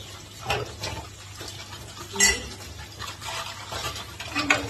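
Dishes and utensils being washed by hand, knocking and clinking against each other and the sink. There are a few separate clinks, and the loudest, about halfway through, rings briefly.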